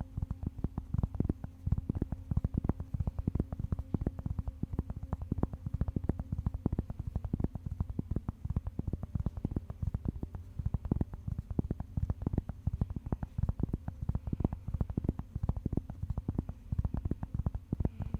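Rapid, irregular tapping on a surface, several dull taps a second.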